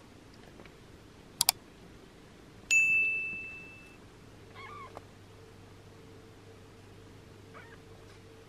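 Two quick clicks followed by a bright bell ding that rings on and fades over about a second: the sound effect of an on-screen subscribe-and-bell animation. A faint short squeak follows a couple of seconds later.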